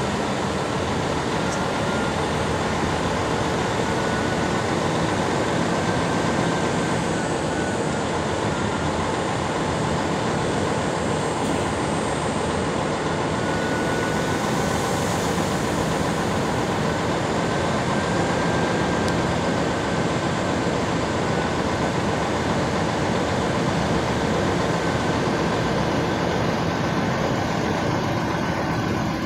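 Container truck's diesel engine running steadily, heard from just outside the cab as the truck idles and creeps forward.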